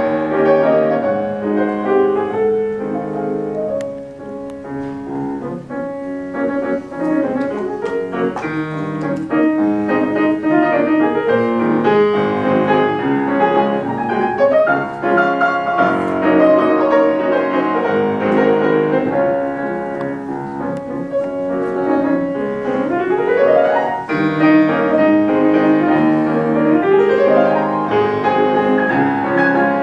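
Grand piano played solo, a classical piece with dense chords and runs. It softens briefly about four seconds in, and two quick rising runs sweep up the keyboard in the last third.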